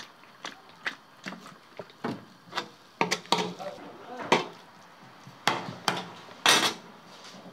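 Metal spatula knocking and scraping against a large shallow steel pan as minced meat is stirred: irregular clacks and scrapes, the loudest about four and six and a half seconds in.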